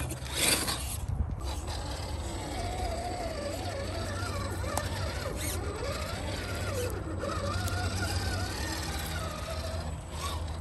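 Electric drivetrain of a 1/10-scale Redcat Gen8 V2 RC rock crawler whining as it crawls over logs and dirt. The pitch wavers up and down with the throttle. A short scrape of tyres or chassis on wood comes about half a second in.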